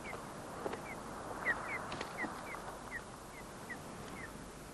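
Sea eagles at the nest giving short, high, falling call notes, about two a second, over a faint background hiss.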